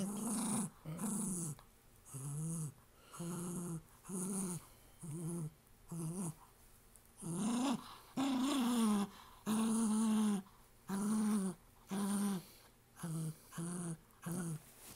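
Small dog growling in short repeated bursts, roughly one a second, as it guards a teddy bear held in its mouth against a hand tugging at it.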